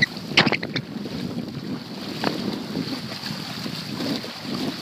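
Small waves lapping and splashing among shoreline rocks, with wind on the microphone and a couple of short knocks.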